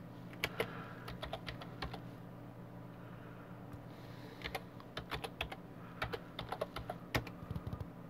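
Typing on a computer keyboard: two flurries of key clicks with a short pause between them, as a terminal command is typed.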